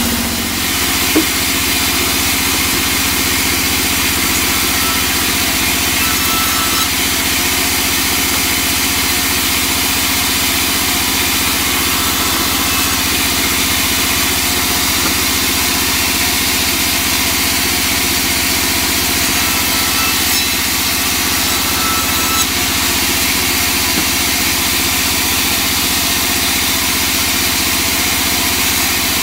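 Large sawmill bandsaw running steadily while its blade cuts through a block of teak, a loud, even noise that holds its level throughout.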